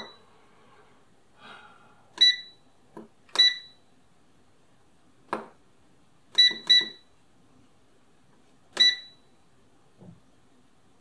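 Digital air fryer control panel beeping as its buttons are pressed to set the cooking time and temperature: five short, high electronic beeps, two in quick succession about six and a half seconds in, with fainter button clicks between them.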